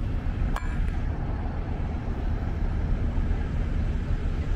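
Outdoor city ambience: a steady low rumble of surrounding traffic, with one short click about half a second in.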